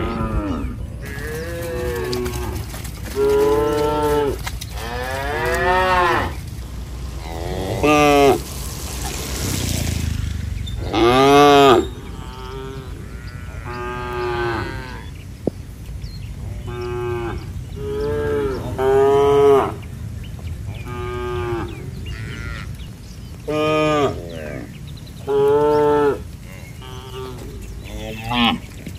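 Cattle mooing again and again, about fifteen calls one after another, some short and some drawn out and rising and falling in pitch, over a steady low background rumble.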